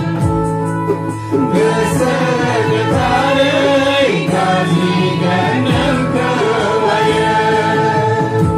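A group singing a gospel hymn with electronic keyboard accompaniment. Held keyboard chords sit under the voices.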